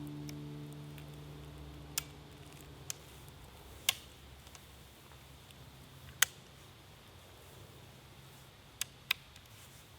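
Background acoustic guitar music fading out over the first few seconds, then a handful of sharp, isolated clicks at irregular intervals, two of them close together near the end.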